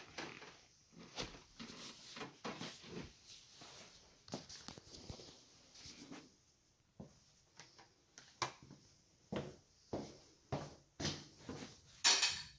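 Footsteps in shoes on a wooden floor and then on tiles, with irregular knocks and clatters; a louder burst of noise near the end.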